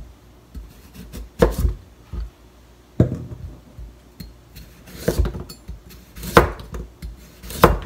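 Kitchen knife slicing a whole carrot into rounds, each cut ending in a sharp knock of the blade on a plastic cutting board: five knocks, spaced a second or more apart, with lighter clicks between.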